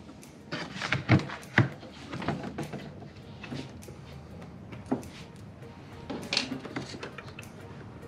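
Hard plastic DeWalt toolbox being opened: two sharp snaps of the lid latches about a second in, then clunks of the lid and scattered knocks and rattles as hands handle the fuel tank and parts inside.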